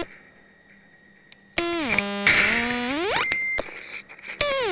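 Homemade SMP-3 noise synthesizer's oscillator. After a short quiet stretch a loud, buzzy tone glides down and holds, then sweeps steeply up to a high note and cuts off. Near the end a second tone starts and slides down to a lower held note.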